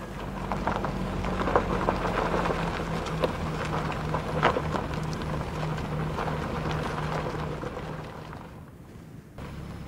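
Fiat Panda Cross driving slowly on a gravel track: a crackling crunch of tyres on loose stones with scattered sharper clicks over a low engine hum, fading near the end.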